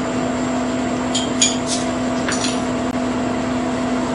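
A few light clinks of tableware over a steady hum, clustered between about one and two and a half seconds in.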